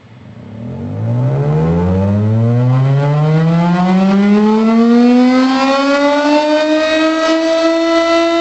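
Tornado siren winding up: its pitch starts low and rises slowly and steadily, getting louder in the first second, then levels off into a steady wail near the end.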